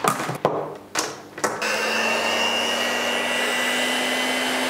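Electric hand mixer switched on about a second and a half in, after a few handling knocks; its motor then runs steadily at one speed with a constant whine.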